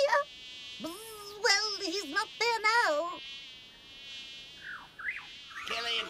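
Cartoon sound effect of a small insect buzzing steadily as it flies. Between about one and three seconds in, a wordless voice whines up and down over the buzz, and two short falling whistles follow near the five-second mark.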